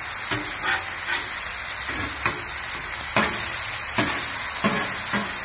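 Smashed beef patties and onions sizzling on a hot flat-top griddle, with a steady hiss. A metal spatula scrapes and taps the griddle surface about eight times as the patties are flipped.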